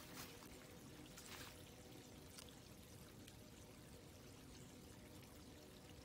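Faint, steady rush of a woodland creek flowing.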